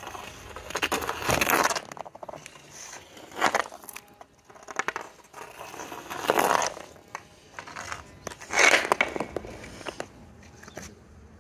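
Hockey stick blade and sneakers scraping and scuffing on an asphalt driveway, close to the microphone, in four gritty bursts a few seconds apart with small clicks between.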